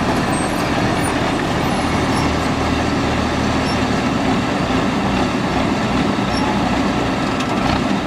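Rice combine harvester's engine and threshing machinery running steadily, a loud, even mechanical drone.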